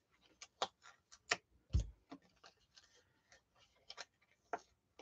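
Faint, irregular small clicks and taps of scrapbook paper being lifted, shifted and pressed down on a layout on a desk, with a soft thump just under two seconds in.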